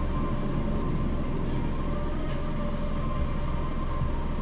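A car's engine idling, heard inside the stationary car's cabin as a steady low rumble with a faint steady hum over it.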